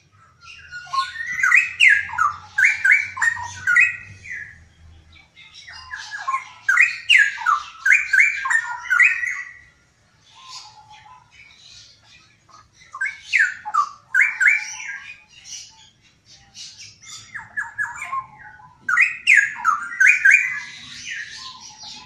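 Straw-headed bulbul singing in four loud bursts of rapid, sliding notes, each about three to four seconds long, with softer, lower notes between the bursts.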